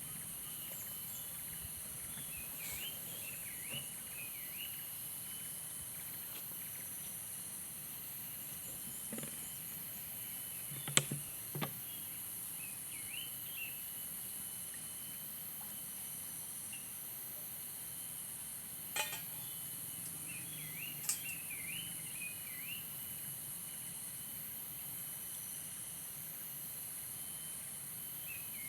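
Insect chorus: a steady, high, shrill drone, with short chirping calls repeating over a thin steady tone. A few sharp knocks stand out, the loudest about eleven seconds in and another near nineteen seconds.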